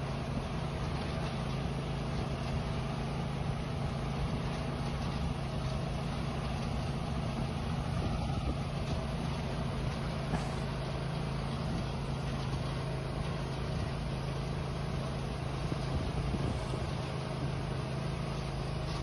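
An engine running steadily at one speed, a low even hum that holds throughout.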